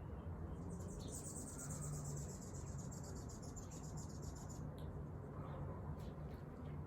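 A high-pitched insect trill, rapidly pulsing, starting about a second in and stopping near five seconds, over a steady low hum.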